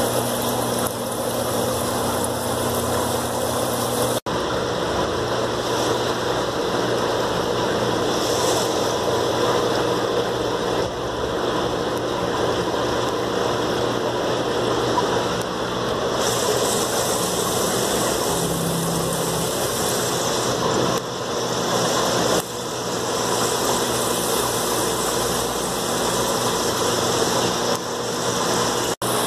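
Steady mechanical hum and hiss of fish-room equipment: aquarium air pumps and filtration running, with water moving. The sound cuts out for an instant twice, about four seconds in and near the end.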